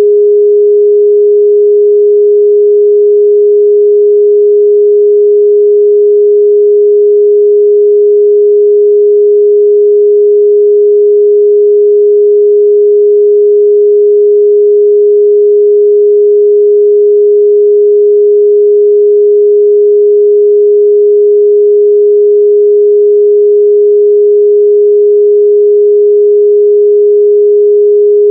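A 414 Hz sine-wave test tone, one steady pure pitch that holds unchanged at a loud, constant level.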